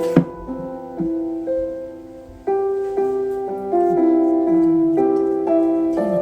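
Soft background music led by piano, slow gentle chords changing about every half second.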